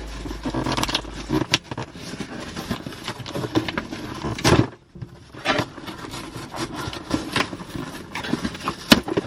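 A package being opened by hand: irregular rustling, scraping and tearing of the packaging with sharp clicks and knocks, the loudest burst about four and a half seconds in.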